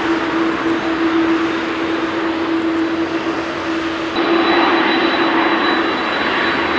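Boeing 787-9's Rolls-Royce Trent 1000 turbofans running steadily at low power as the jet lines up for take-off, a constant engine hum with a steady tone. The sound shifts abruptly about four seconds in, adding a faint high whistle.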